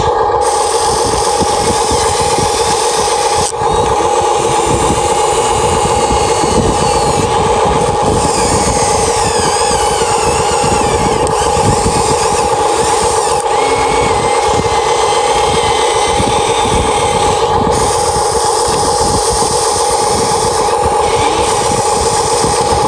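Huina 1593 RC excavator's electric motors and gearboxes whining steadily, with higher tones that waver and slide in pitch as the machine works.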